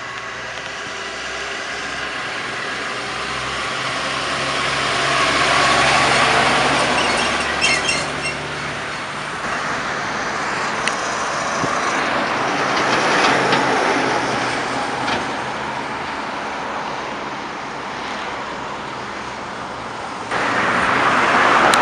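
Heavy trucks and cars driving past on a city street, engines and tyre noise swelling and fading as each goes by. A short run of clicks comes about eight seconds in.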